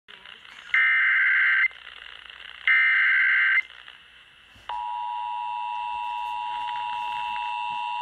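Emergency Alert System broadcast over a small portable radio's speaker: two SAME header data bursts, each a harsh digital screech about a second long, then about halfway through the steady two-tone EAS attention signal starts and holds. It is the opening of an EAS alert, here a relayed flash flood warning.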